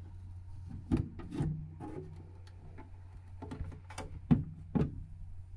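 Several sharp knocks and rubbing sounds from handling a 3D printer's enclosure, over a steady low hum.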